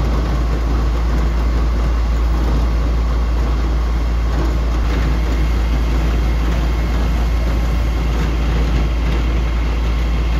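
Steady, loud low rumble of heavy truck diesel engines running at a fire scene: the fire engine and water tanker pumping a water jet.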